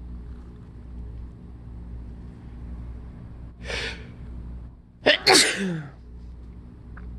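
A person's harsh allergy sneeze, sudden and loud, about five seconds in, after a sharp breath in about a second earlier.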